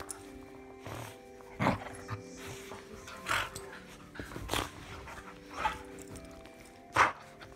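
A dog at play close to the microphone, making five short sudden sounds spaced a second or so apart, the last the loudest.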